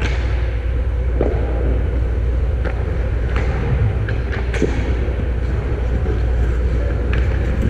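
Ice hockey rink sound from a camera mounted on the goal: a steady low rumble and light hiss, with a few sharp clacks of play on the ice.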